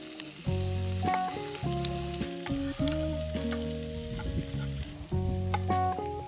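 Chopped onion sizzling in hot oil in a wok as it is scraped in, with a knife scraping and tapping the rest off a wooden cutting board in a few sharp ticks. Soft background music plays along.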